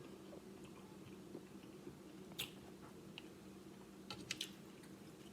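Faint chewing of a mouthful of food, with a few soft wet mouth clicks: one about halfway through and a small cluster near the end.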